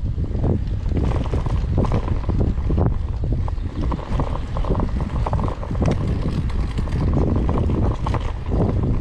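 Wind buffeting a GoPro mounted on a moving bicycle's handlebars: a heavy, steady low rumble, broken by frequent short knocks and rattles as the bike rides over the road.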